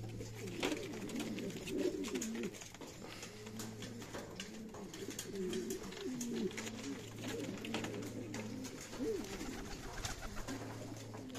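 Several Buchón Valenciano pouter pigeons cooing, with wavering calls overlapping one another all the way through, over a steady low hum.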